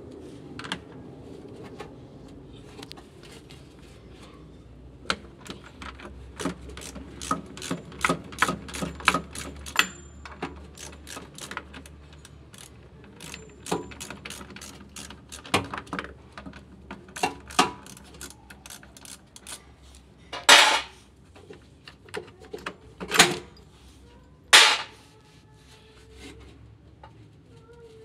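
Ratchet wrench clicking in quick runs and metal tool clinks as the mounting bolts of a flood-damaged washing machine motor are worked loose, with three louder knocks in the second half.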